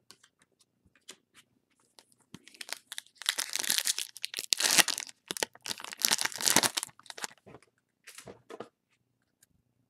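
A foil trading-card pack (2019 Topps Gallery) being torn open by hand. The foil wrapper crinkles and tears loudly for about four seconds from two seconds in, followed by a few lighter crinkles near the end.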